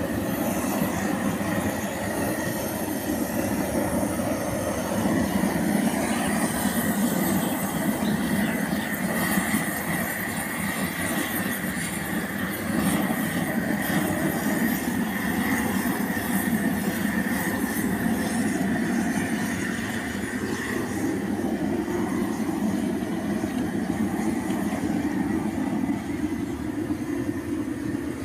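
Gas torch burning steadily as it singes a pig's hide.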